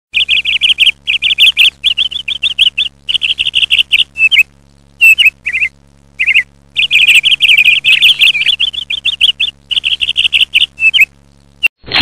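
Budgerigar chirping loudly in quick runs of repeated chirps, broken by short pauses, until just before the end.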